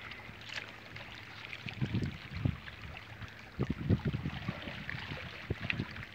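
Seawater lapping and sloshing among the concrete tetrapod blocks of a breakwater, with a few low rumbles of wind on the microphone.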